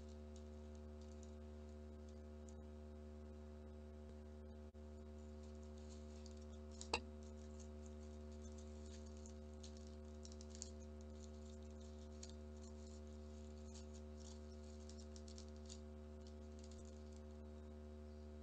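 Faint crinkling and rustling of folded origami paper as hands shape a paper flower's curled petals and stamens, over a steady low hum. One sharp click partway through.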